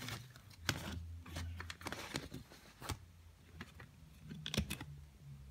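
Plastic CD jewel case and its paper booklet being handled: short rustles and scrapes with a string of sharp plastic clicks, the loudest about four and a half seconds in.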